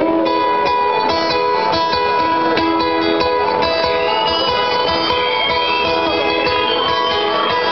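Guitar strummed in chords, played live on stage by a solo performer and heard from the audience.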